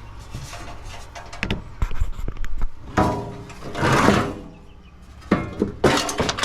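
Clicks, knocks and scraping of coffee-maker parts and hand tools being handled and pried apart, with a longer scrape or rattle about three to four seconds in.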